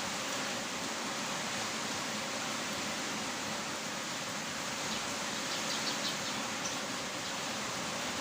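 Heavy rain falling as a steady, even hiss, with a few faint high ticks about two-thirds of the way in.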